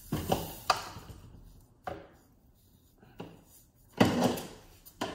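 Irregular knocks and clatter of handling on a tabletop, several light ones and the loudest about four seconds in, as the waffle maker's power cord and plug are pulled out and moved about.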